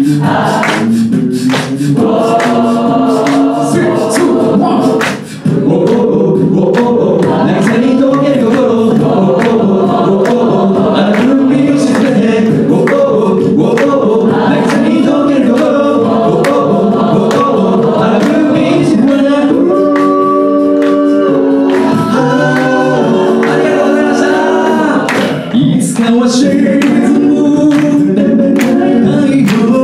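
An a cappella vocal group singing in close harmony over vocal percussion, with an audience joining in on a repeated sung phrase.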